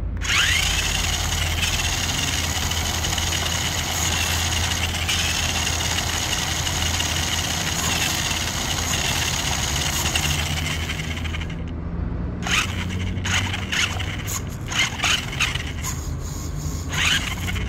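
Electric motor and gear train of a radio-controlled car whining as it drives over asphalt. It spins up with a quick rising whine, runs steadily for about eleven seconds and stops. Then comes a string of short, sharp bursts as it moves in brief spurts.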